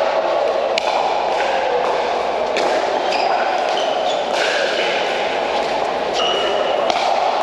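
Pickleball paddles striking a hollow plastic pickleball during a rally: a string of sharp pocks, several over the few seconds, some with a brief ringing tone. Under them is the steady din of a busy indoor court hall.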